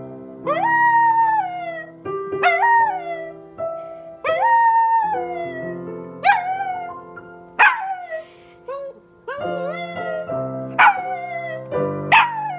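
A small dog howling along to a piano, about eight howls that each rise and then slide down in pitch. The first few are held about a second and a half, and the later ones are shorter. Sustained piano notes play underneath.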